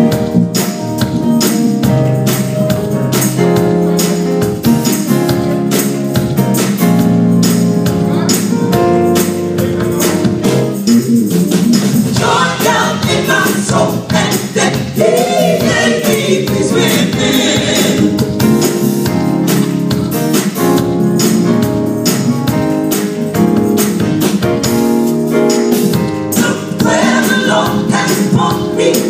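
Gospel choir singing with a live band playing a steady beat. The voices come in strongly about twelve seconds in.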